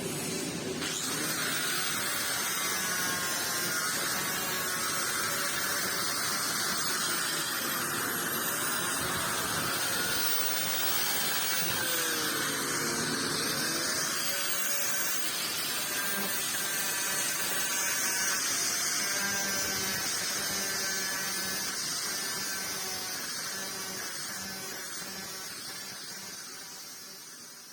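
Steady electric buzz and hiss of a TIG welding arc on stainless steel pipe, fading away over the last few seconds.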